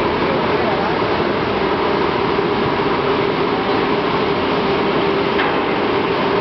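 Tugboat's diesel engine running hard under way: a loud, steady drone with one low hum through it, mixed with the rush of churning propeller wash.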